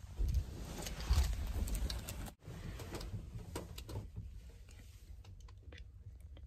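Handling noise and rustling as a handheld phone is moved about inside a capsule-hotel pod, with a few small clicks; the sound drops out briefly about two seconds in.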